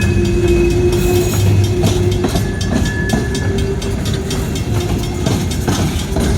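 Train cars rolling past close by: a loud, steady rumble with the clickety-clack of wheels over rail joints and a thin, steady squeal from the wheels.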